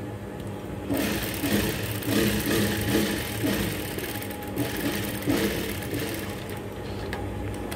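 Industrial single-needle sewing machine running as it stitches a seam through the fabric. It starts about a second in and runs in a few short stretches, with brief stops, over a steady low hum.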